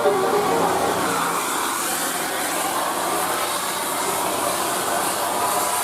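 Steady rushing hiss of heavy rain and traffic on a wet road, with the last notes of a bus's telolet musical horn dying away in the first half second.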